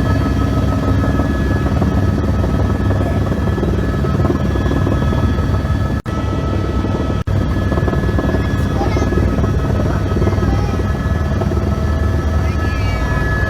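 Helicopter running steadily: a dense low rumble of engine and rotor with a steady high whine over it. The sound drops out twice for an instant, about six and seven seconds in.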